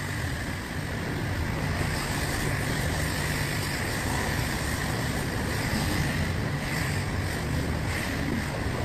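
Self-serve car wash high-pressure wand spraying rinse water onto a soap-covered car: a steady hiss and spatter of water on the car body.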